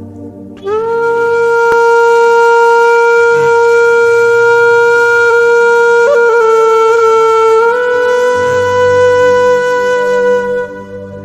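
Background music: one long held wind-instrument note over a low sustained backing, sliding up into pitch about a second in and lasting about ten seconds, with a slight waver in the middle and a small step up in pitch near the end.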